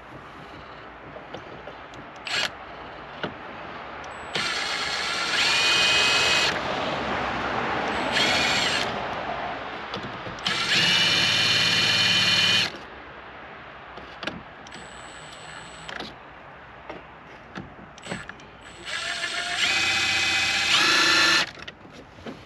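Milwaukee M12 Fuel cordless drill run in four short bursts of one to two seconds each, driving a fastener on the boat's steering helm; the motor's whine rises in pitch partway through some bursts.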